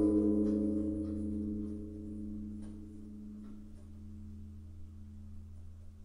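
Large temple bell ringing on after being struck with a hanging wooden log, its sound slowly fading. The higher ringing dies away about three seconds in, leaving a low hum and a steady low tone that carry on.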